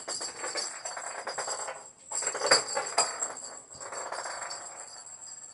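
A cat's jingle-bell ball toy rattling and ringing in irregular bursts as the cat plays with it. The loudest jingles come about two and a half and three seconds in, and the jingling dies away near the end.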